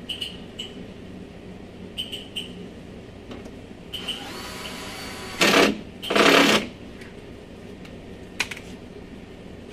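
Cordless drill/driver working screws in a car door: a few light clicks, a steady motor whine about four seconds in, then two short loud bursts of the drill running at full speed, a little over half a second apart.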